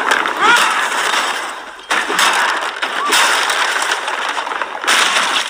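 Fight-scene crashes: loud smashing and breaking, with fresh hits starting suddenly at the start, about two seconds in and about five seconds in. A few short rising cries come between the hits.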